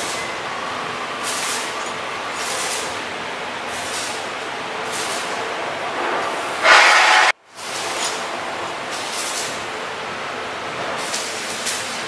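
Steady mechanical noise with a short hiss every second or so. About halfway through a louder hiss rises, then the sound cuts off abruptly and comes back a moment later.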